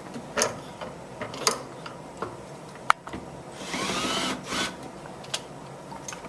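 Power drill driving mounting screws tight with a Phillips bit: one short run of the motor with a rising whine a little over halfway through, among scattered clicks and knocks of the bit and screws.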